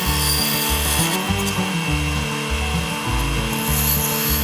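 A 10-inch Craftsman bandsaw cutting through a thick cedar board with a steady rasping hiss, over background music with a stepping bass line.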